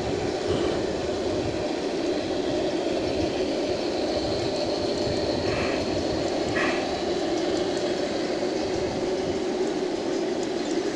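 G-scale garden model train running on its outdoor track, a steady rumble with a faint high whine, plus wind buffeting the microphone.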